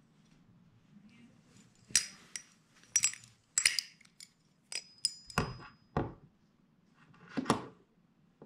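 Metal balisong (butterfly knife) being handled: a series of about eight sharp metallic clicks and clinks, a few with a brief high ring.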